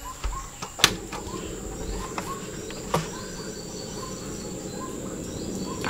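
Crickets chirping steadily in the background. A few sharp knocks of cookware come about a second in and again near three seconds, and from about a second in there is a steady low rushing.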